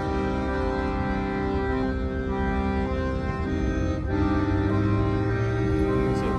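Accordion playing a slow tune of held notes and chords that change every second or so, with the bass growing stronger about four seconds in.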